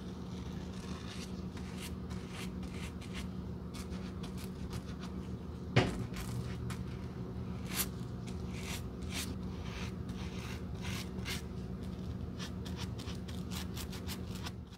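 Small stiff brush dabbing and scraping a white coating onto the cork edge of a Birkenstock footbed, short scratchy strokes in quick irregular succession. A sharp knock about six seconds in and a smaller one near eight seconds, from the sandal or brush being handled.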